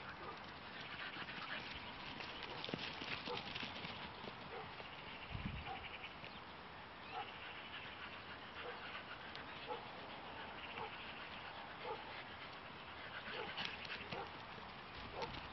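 Faint field ambience with a string of short animal calls, a little under one a second, from about six seconds in.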